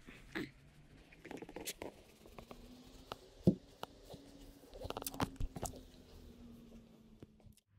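A small dog and a plush hand puppet rustling and bumping on a cloth-covered floor: scattered soft clicks, rustles and mouthing noises, sharpest about three and a half seconds in and in a quick cluster around five seconds. A faint low hum runs underneath, slowly rising and then holding steady until it stops just before the end.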